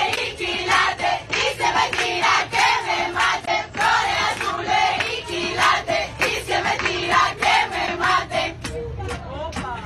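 Rhythmic hand clapping, several claps a second, with female voices singing along.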